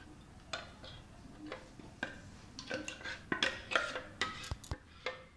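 Metal spoon clinking and scraping against a stainless-steel mixer jar and pot while thick batter is scooped out and poured. The clinks come irregularly and are most frequent in the second half.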